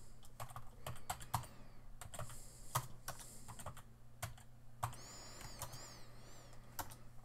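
Faint, scattered keystrokes on a computer keyboard, single taps at irregular intervals.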